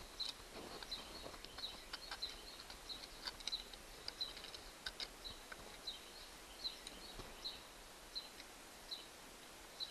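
Faint scraping and small clicks of a screwdriver tip picking carbon deposits out of an outboard starter motor's housing, while a bird chirps repeatedly, short high chirps about one or two a second.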